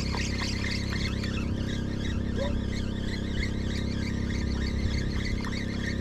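A steady low mechanical hum, like an engine or generator running, with an even hiss over it.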